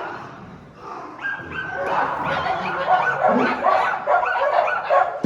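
A pack of dogs barking and yipping over one another, growing louder and busier about two seconds in: a noisy squabble among the dogs.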